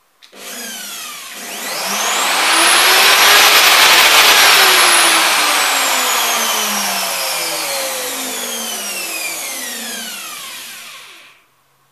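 A Kalibr FE-1700/12M+ 1,700-watt hand router runs with no load, its motor giving a high whine. The pitch rises over about four seconds as the soft start brings it up to speed. It then falls slowly for about seven seconds, and the sound stops about eleven seconds in.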